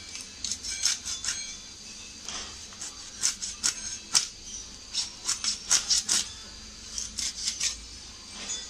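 A hilsha fish head being split on an upright bonti blade: a string of sharp, irregular crunching clicks and scrapes as the blade cuts through the head's bone, thickest in the middle.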